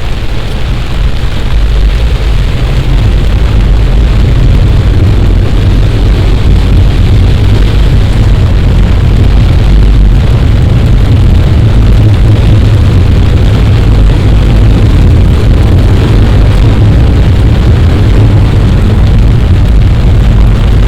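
Heavy summer downpour: a loud, steady rush of rain with a deep rumble under it, building over the first two seconds and then holding.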